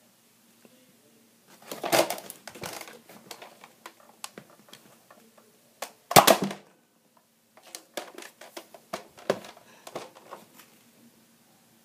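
Plastic Nerf blasters being handled: scattered clicks and clatter of hard plastic parts, with the loudest knock about six seconds in.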